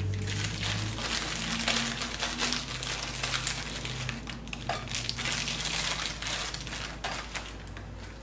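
Plastic cookie packet crinkling and rustling as it is opened and handled, with irregular crackles.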